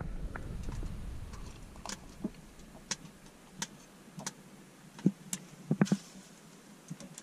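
A plastic cup of cold melted-snow water being handled and drunk: a brief rustle of handling, scattered small clicks, and a quick run of low gulps about five to six seconds in.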